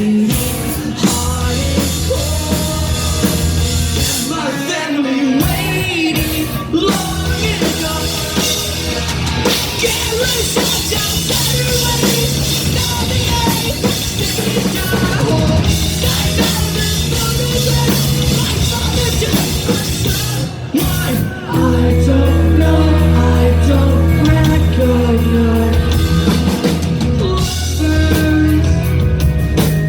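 Rock band playing live at full volume: drums, distorted guitars and bass in an instrumental stretch of the song. About two-thirds of the way through there is a brief drop, and then the band comes back in heavier and louder.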